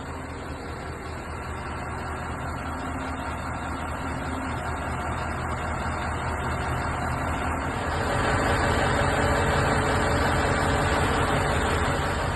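Kanglim 2056 truck-mounted crane running on its hydraulics while the column slews under a one-ton test load: a steady engine and hydraulic-pump hum with oil rushing through the lines, with no foreign knocking or grinding now that the central swivel has been resealed. It grows louder, stepping up about eight seconds in.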